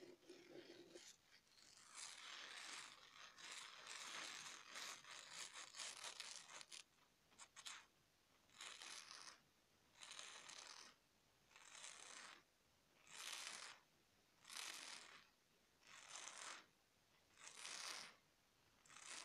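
Soft scratching and rubbing of craft-foam (fomi) sheets handled close to the microphone. A dense, continuous stretch comes first, then regular strokes about every second and a half.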